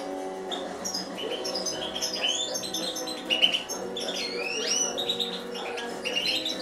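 European goldfinch singing a quick twittering song of short chirps and rising and falling notes, with background music of steady low tones underneath.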